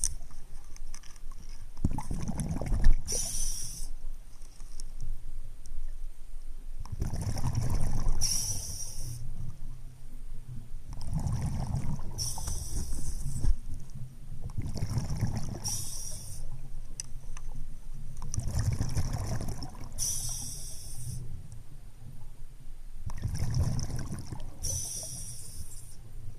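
Underwater breathing of a diver close to the microphone: a bubbling exhalation rumble and a hissing breath repeat about every four to five seconds, six times in all.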